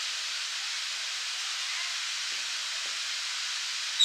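Park fountain's central jet spraying and falling back into its basin: a steady, even hiss of splashing water.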